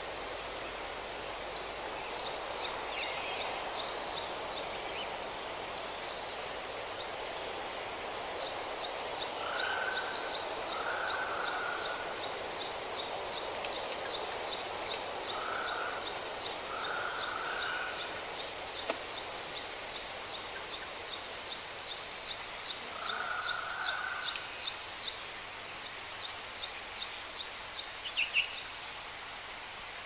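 Birds singing over a steady outdoor hiss: a long series of rapid, evenly repeated high notes runs through the middle, with short lower notes called now and then.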